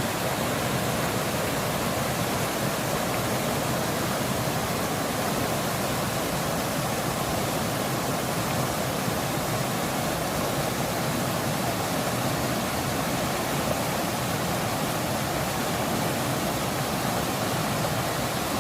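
Mountain stream rushing over rocks in a steady, unbroken flow, running full after rain.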